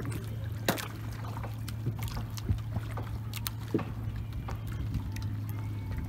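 A small boat's engine running at a steady low hum, with several sharp knocks and splashes of water over it.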